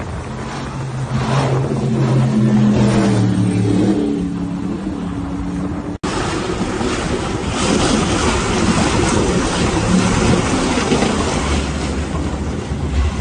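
Motorboat engine running with a steady hum that sinks slightly in pitch. About six seconds in it cuts abruptly to loud rushing water and wind from a small boat under way, with a low engine drone beneath.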